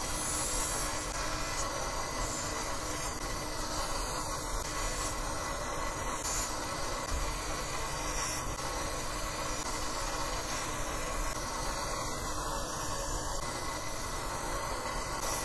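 Electric bench grinder running steadily, with a small steel sewing-machine presser foot held against its wheel to grind and smooth the metal. It is an even, continuous grinding noise.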